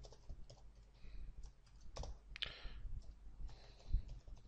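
Typing on a computer keyboard: irregular key clicks, with a brief hiss about halfway through and a louder low thump near the end.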